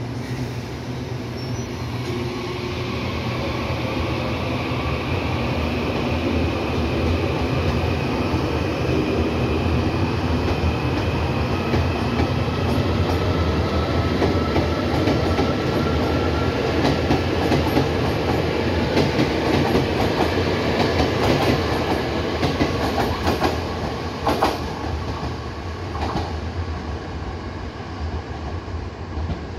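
Taiwan Railway local electric multiple-unit train pulling out of the station and accelerating: its running noise carries a whine that rises in pitch as it gathers speed. Sharp clicks of the wheels over the track come about two-thirds of the way through as the cars pass, then the sound fades as the train draws away.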